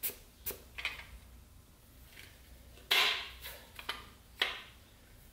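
Scattered light clicks and knocks, with a short scraping rustle about three seconds in, as a piston and connecting rod are worked down an LQ4 V8's cylinder bore and seated onto the crankshaft journal.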